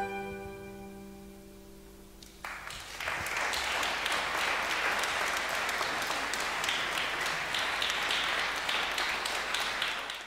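A final chord on an acoustic guitar rings and fades away. About two and a half seconds in, an audience breaks into applause that carries on steadily.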